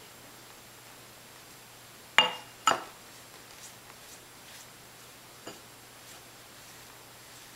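Two sharp clinks about half a second apart, a pastry brush knocking against the bowl of oil-and-herb mixture, then a faint tick a few seconds later.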